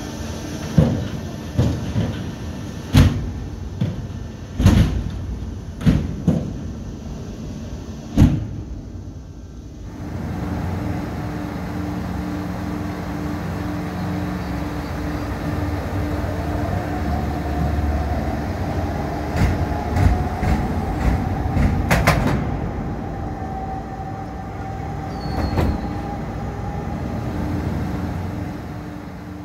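Antonov An-124-100 landing gear being cycled on jacks: a run of heavy metallic clunks in the first several seconds, then a steady mechanical hum with a slowly rising whine and a few more clunks.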